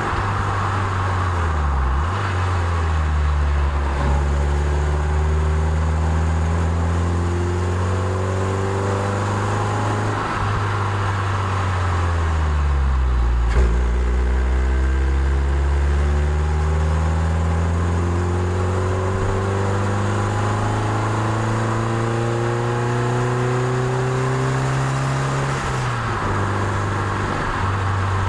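Toyota MR2 Spyder's 1.8-litre four-cylinder engine heard onboard, pulling uphill. Its note climbs slowly in pitch and drops back a few times, about two seconds in, again in the middle and near the end, before climbing again, over a steady hiss of wind and tyre noise.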